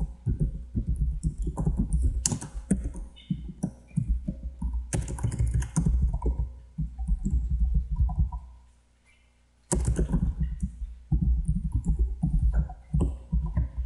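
Typing on a computer keyboard: fast runs of keystroke clicks, stopping for about a second roughly two-thirds of the way through, then starting again.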